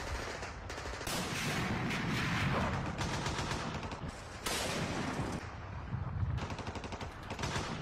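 Bursts of rapid gunfire, volleys of quick cracks like machine-gun fire, coming in several separate bursts.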